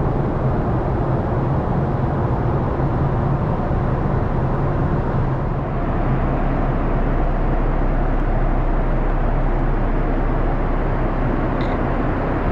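Steady airliner cabin noise as the plane gets under way: a low engine hum under a rushing hiss, growing slightly louder about halfway through.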